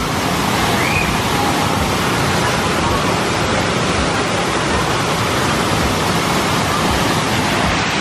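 Waterfall close by: a loud, steady rush of water pouring down a rock face.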